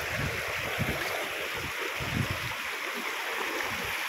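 Shallow river rushing over stones, a steady wash of running water, with irregular low rumbles underneath.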